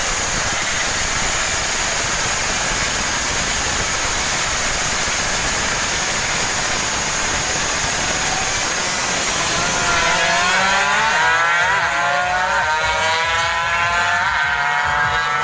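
Tuned underbone motorcycle running hard on a straight road, its engine buried under a steady rush of wind and road noise at first. About ten seconds in, the engine note comes through clearly, climbing and dropping back in steps as it shifts up through the gears.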